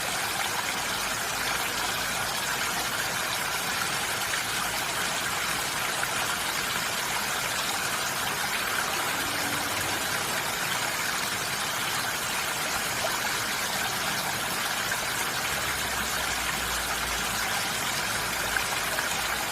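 Steady rain falling on a roof, an even patter.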